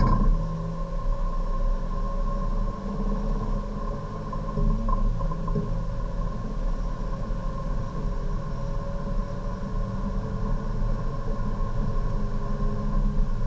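Hyundai Avante Cup race car's engine, heard from inside the cabin, pulling hard at full throttle down a straight. It shifts up from third to fourth partway through, then climbs again towards about 6,000 rpm, over a steady low rumble of road and tyres.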